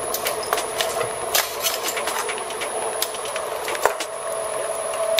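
Dual-shaft shredder running with a steady hum from its turning steel cutter wheels, with irregular sharp clicks and knocks as a soft dinosaur toy bounces on the cutters.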